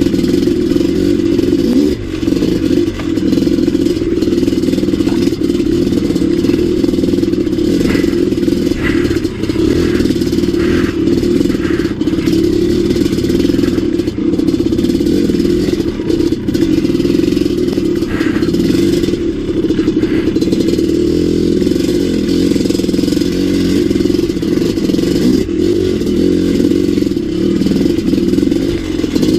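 Maico 700 dirt bike's big single-cylinder two-stroke engine running steadily while being ridden over rocky singletrack, its low engine note filling the sound, with occasional clatter from the bike on the rocks.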